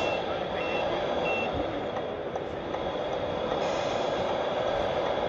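Reversing beeper of a Tamiya 1/14 RC Scania 770S tractor unit backing up to a trailer: a short high beep repeated a little under twice a second, stopping about a second and a half in, over steady hall noise. A hiss starts about three and a half seconds in.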